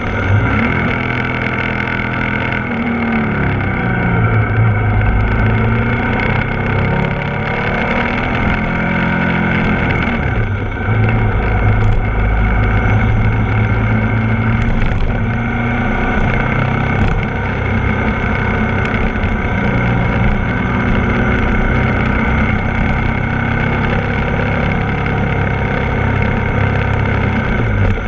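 Ducati Multistrada 1260 S's V-twin engine heard from on board while riding through bends. The engine note falls over the first few seconds as the bike slows into a curve, rises again as it accelerates out, dips briefly about ten seconds in, then holds fairly steady.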